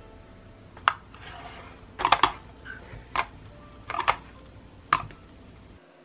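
Sharp clicks and taps of fingernails and plastic as gel nail strips are peeled from their backing sheet and pressed onto the nails, with a short crinkly rustle after the first click.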